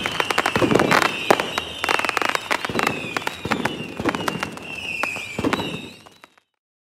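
Fireworks going off: a dense run of sharp bangs and crackles over a high whistle that slides slowly down in pitch, fading out about six seconds in.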